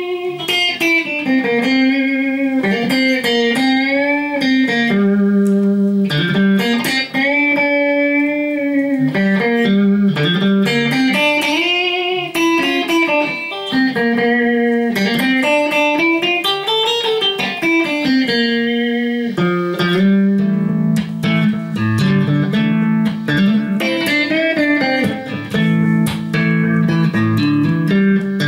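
Strat-type electric guitar with freshly installed 1962 Fender reissue single-coil pickups, played to test them: a melodic lead line with notes bending and sliding in pitch, then, about two-thirds of the way through, a repeated chord pattern.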